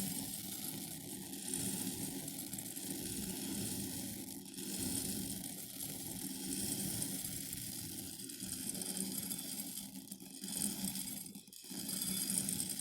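Buckwheat grains pouring into a glass bowl: a steady grainy rush that drops out briefly near the end, then resumes.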